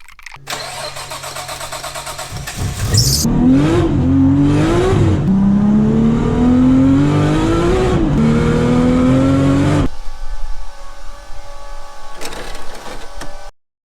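Nissan Skyline R33's engine idling, then revved twice and pulling hard with its pitch climbing steadily, as in hard acceleration through a gear. About ten seconds in it drops to a quieter steady engine sound, which cuts off abruptly near the end.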